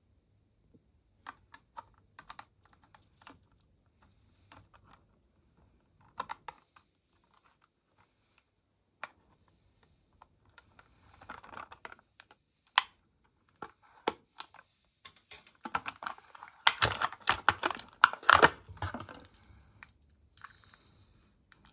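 Hot Wheels blister-card packaging being opened by hand: scattered clicks and crinkles of the plastic blister and card, building to a loud, dense run of crackling about three-quarters of the way through.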